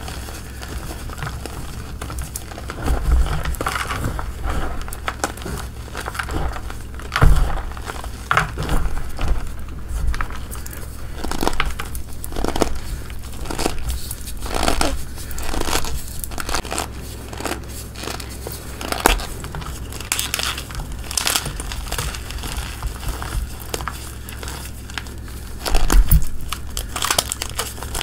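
Bare hands crushing and squeezing soft blocks of gym chalk caked with powder: an irregular run of crunchy, crumbling crackles, with louder crunches about seven seconds in and again near the end.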